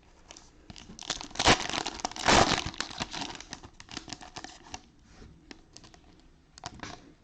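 Plastic cello wrapper of a trading-card pack being torn open and crinkled, with two loud rips about a second and a half and two and a half seconds in, then lighter crinkling and clicks.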